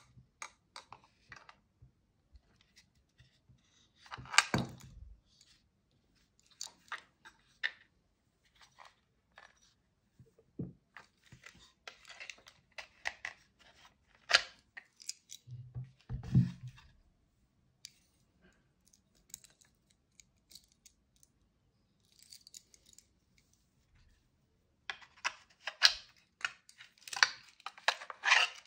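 Handling noises from a Kydex knife sheath with a ferro rod in its loop: scattered clicks, rubbing and plastic scrapes. A busier stretch of scraping and clicking near the end comes as the fixed-blade knife is pulled out of the sheath.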